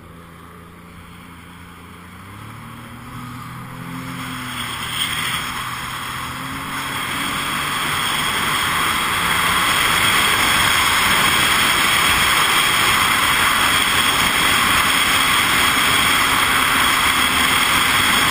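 Jet ski engine speeding up, its pitch rising over the first few seconds and growing louder, then running steadily at speed under a loud, even rush of wind and water noise.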